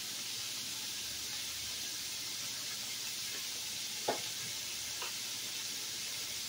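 Ground beef sizzling steadily as it fries in a skillet, with a light knock about four seconds in and a fainter one about a second later.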